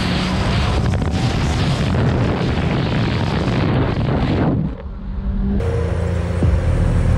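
McLaren's twin-turbo V8 running at speed, mixed with wind noise through the open window, loud and dense for about four and a half seconds. After a brief drop, a Lamborghini Aventador S's V12 idles steadily.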